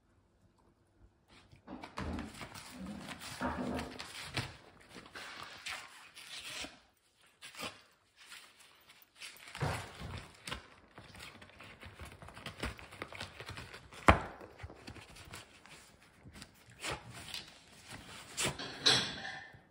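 Corgi puppy chewing and tearing at a cardboard pizza box on a hardwood floor, starting about a second and a half in: irregular crinkling and scraping of cardboard with scattered sharp knocks, the loudest a single knock about 14 seconds in.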